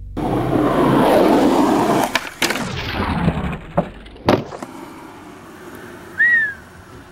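Skateboard wheels rolling hard on concrete, then sharp clacks and knocks as the board is popped and lands, with the trucks grinding along a step ledge in between, about two to four and a half seconds in. A short high squeak sounds near the end.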